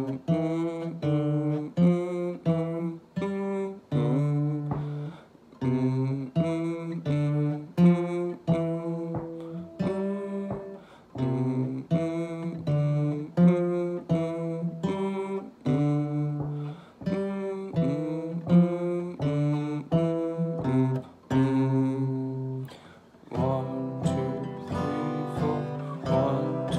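Steel-string acoustic guitar playing a simple beginner lesson piece, notes and chords struck one after another at a steady, even pace, with a short pause about five seconds in and a fuller passage near the end.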